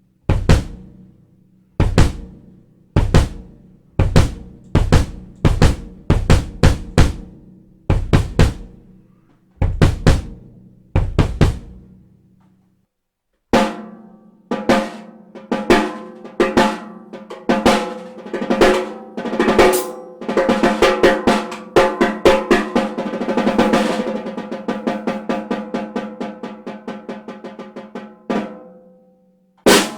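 Mapex Storm drum kit being played: single heavy hits with a deep low end every second or two, then after a short pause a fast, dense run of drum strokes and rolls that goes on for about fifteen seconds.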